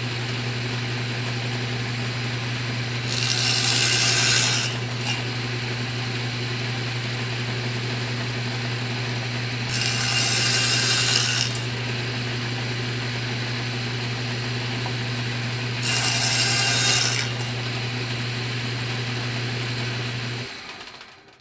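Electric saw running with a steady motor hum, making three cuts of about a second and a half each, each cut louder and hissier than the idle. Near the end the motor switches off and winds down.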